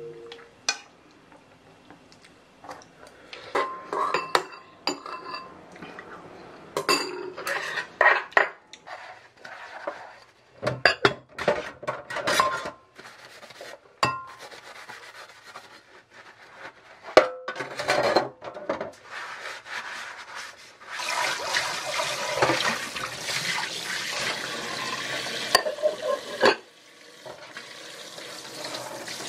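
Dishes and metal utensils clinking, knocking and scraping as they are washed by hand in a stainless-steel sink. The tap runs steadily for several seconds in the second half, water pouring into the sink over the items being rinsed.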